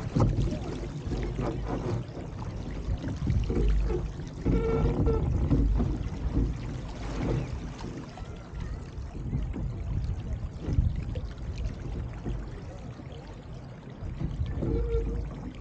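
Water rushing and splashing along an RS300 sailing dinghy's hull as it sails, with uneven wind rumble on the microphone. A short pitched sound comes about five seconds in and again near the end.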